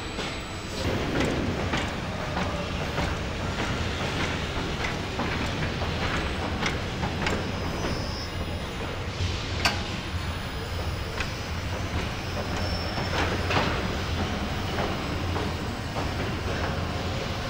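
Car assembly-line machinery running: a steady low hum with frequent metallic clicks and clanks.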